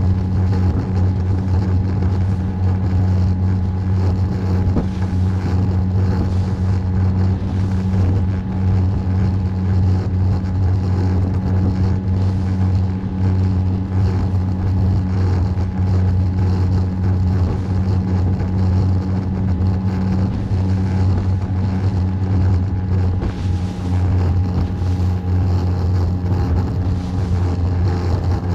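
Small fishing boat's motor running steadily at cruising speed, a constant low hum.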